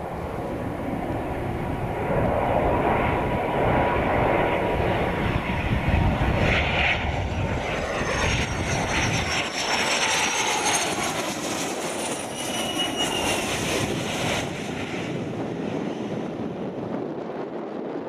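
Cessna 560XLS Citation twin-turbofan business jet on landing approach, passing low overhead. The engine noise builds to a peak midway, a high whine falls in pitch as the jet goes by, and the sound then fades away.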